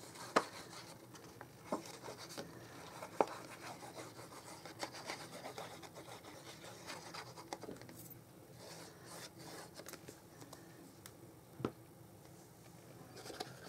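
Patterned paper and cardstock being handled and rubbed: soft rustling and scraping with a few sharp taps.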